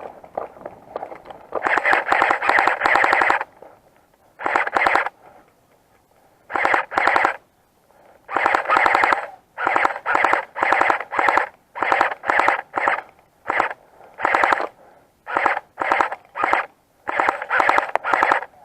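Airsoft gun firing full-auto bursts, each a rapid string of clicks. A long burst of nearly two seconds comes first, then many short bursts of half a second to a second each, closer together toward the end.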